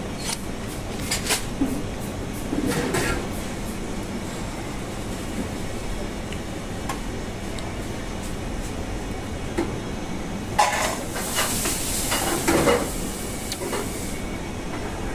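Café kitchen background: a steady hum with dishes and cutlery clinking now and then, and a louder run of clattering and scraping of dishes from about ten to thirteen seconds in.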